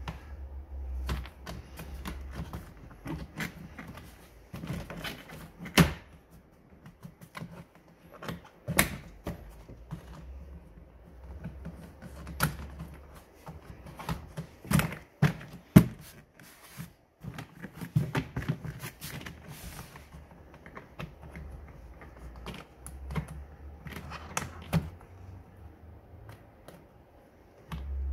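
Plastic engine-bay cowl trim and its rubber seal being handled and pressed back into place by hand: irregular sharp plastic clicks and knocks, a few louder snaps among them, with rustling in between.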